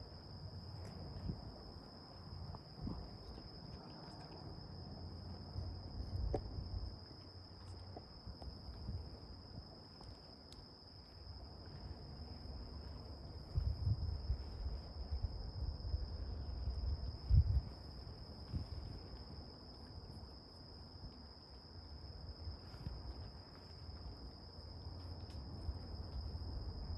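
Insects trilling in a steady, high-pitched chorus, with low rumbling and a few dull bumps underneath.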